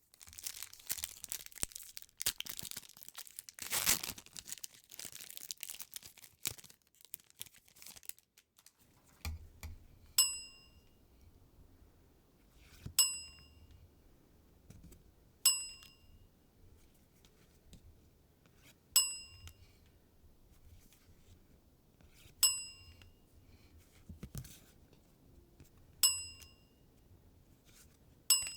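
A foil booster-pack wrapper crinkling and being torn open, with one loud rip about four seconds in. Then a bright bell-like ding rings seven times, about every three seconds.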